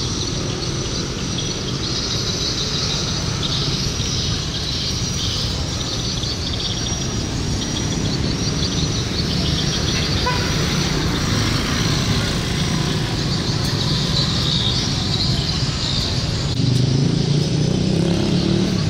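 Street traffic ambience: motorbike engines and passing vehicles rumble steadily, with a continuous chorus of high chirping above them. It grows a little louder near the end.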